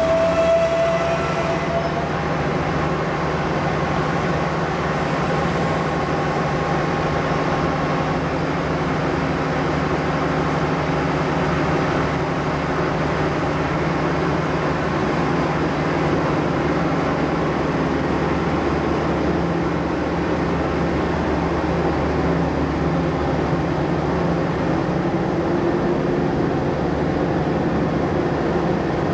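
MLW MX627 diesel-electric locomotive's V12 ALCo 251 engine idling with a steady low drone, while a diesel railcar set pulls slowly away. A high tone stops about two seconds in.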